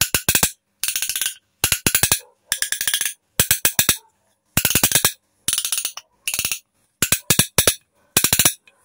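Hand-held spearfishing fish-attractor clickers ('call fish') being worked in short bursts: a toothed wheel spun against a tongue gives a fast, loud rattle of clicks about a dozen times, each burst roughly half a second long.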